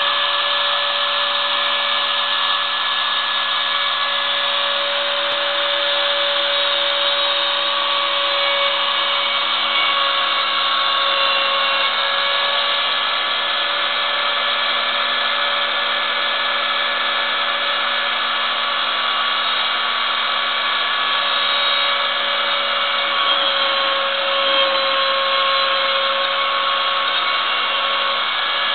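Ooznest Ox CNC router running steadily, its spindle whining at a constant pitch over a hiss as a small end mill carves lettering into a wooden plaque.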